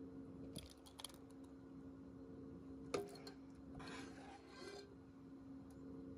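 Utensils knocking and scraping as blackberry jam is poured from a pot through a plastic canning funnel into a glass jar: a few light taps, one sharper clink with a short ring about three seconds in, then about a second of scraping. A steady low hum runs underneath.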